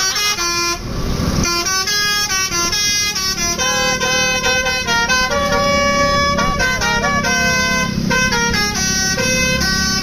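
Basuri telolet horn on a Sumber Jaya coach playing a quick tune of changing horn notes, with a short hiss about a second in and a low engine rumble beneath that grows in the second half.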